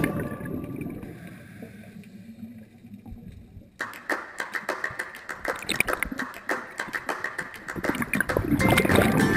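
Underwater sound picked up by a diver's camera: a low muffled rumble, then about four seconds in a sudden switch to a dense crackle of sharp clicks. Soundtrack music fades out at the start and comes back near the end.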